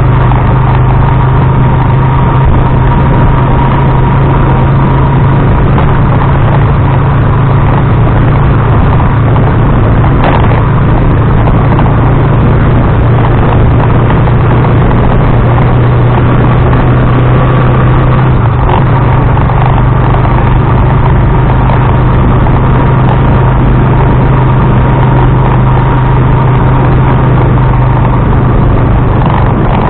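Tricycle's motorcycle engine running steadily, loud, with a constant low hum and engine noise picked up close by the on-board action camera.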